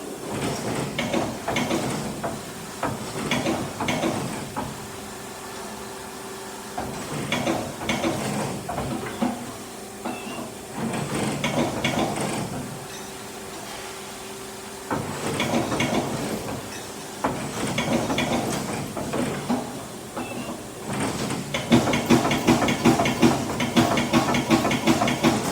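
CNC machine running a cut: a steady machine hum with a held tone, broken every few seconds by stretches of harsher cutting noise as the tool works the material. Near the end the cutting turns to a fast, loud rattle.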